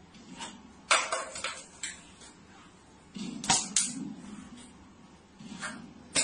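A plastic water bottle knocking and tapping on a shelf top as it is handled and swatted by a cat, a string of sharp separate knocks, with a clatter near the end as the bottle is knocked off the edge.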